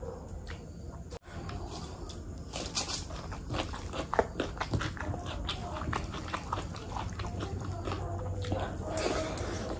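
Close-miked wet chewing and mouth smacking while eating mutton curry with rice, a dense run of short, sharp clicks and squelches. Fingers squish and mix rice into the gravy.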